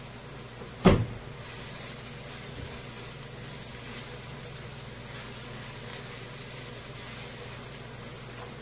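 Spatula stirring grated onion in olive oil in a frying pan, with one sharp knock about a second in, over a steady low hum.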